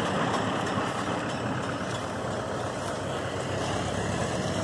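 A machine running steadily, a low hum under an even rushing noise.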